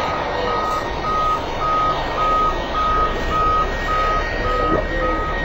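A vehicle's reversing alarm beeping at one pitch, about two beeps a second, over a steady rumble.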